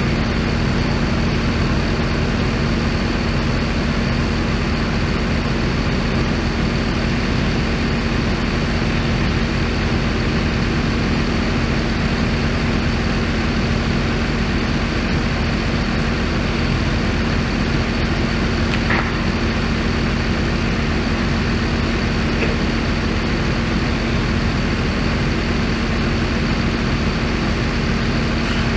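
Engine of heavy equipment idling steadily, a constant even hum with no revving, with a couple of faint clicks about two-thirds of the way through.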